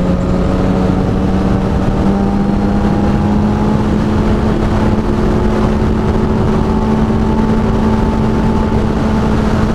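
Suzuki GSX-R 750's inline-four engine, fitted with a short aftermarket exhaust, running at a steady highway cruise. Its pitch creeps slowly upward as the bike gains a little speed, under loud wind rush.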